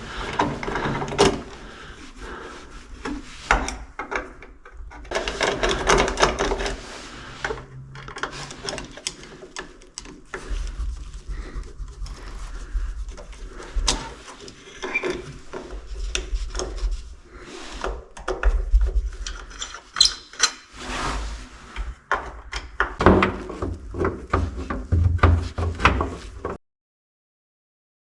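Clicks, knocks and rubbing from hands-on electrical installation work with cable and fittings, with a low rumble at times. It cuts to dead silence near the end.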